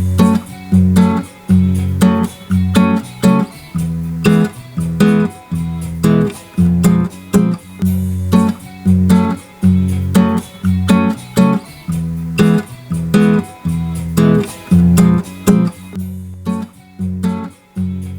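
Acoustic guitar strummed in a steady rhythm, about two strums a second, played back as a recorded track through an 1176-style compressor.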